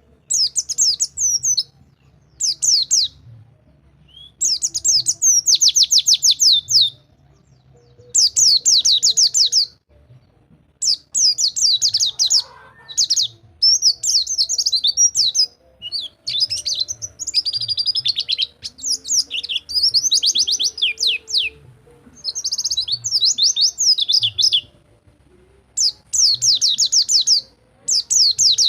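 White-eye (pleci) singing its fast rolling 'rol tembak' song: rapid runs of high chirps in bursts of one to two seconds, with short pauses between.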